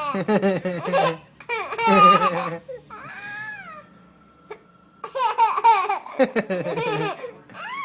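A baby laughing in several bursts with a short lull in the middle, laughing at his own hiccups.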